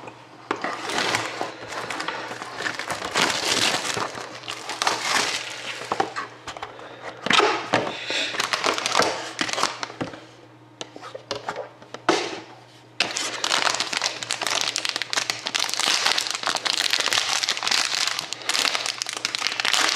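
Plastic wrapping crinkling and tearing as a sealed trading card box is unwrapped and opened, in irregular bursts with a lull about ten seconds in, then continuous crinkling from about thirteen seconds on.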